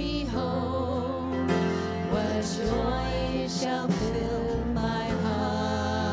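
Worship song: a band playing with a voice singing over sustained bass notes.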